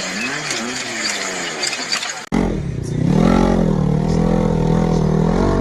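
Off-road 4x4 engines running under load in two clips: first revving up and down, then, after a sudden cut about two seconds in, a louder engine that rises in revs and holds steady with a low rumble.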